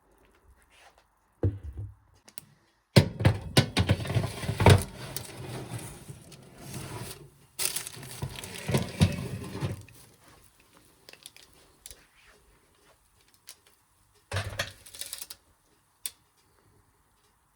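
Rustling and crinkling with light knocks, as of food or packaging being handled at a kitchen counter. It comes in a long stretch of several seconds starting about three seconds in, and a short one near the end.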